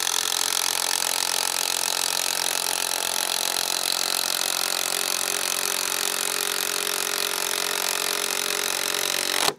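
Cordless power driver driving a long timber screw into a rough-cut timber bumper, its motor running steadily under load for several seconds, then cutting off suddenly near the end.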